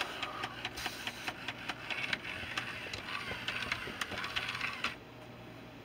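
Hasbro FurReal Friends Squawkers McCaw animatronic parrot's motors and gears whirring with many small clicks as the toy moves in dance mode. It gets quieter about five seconds in.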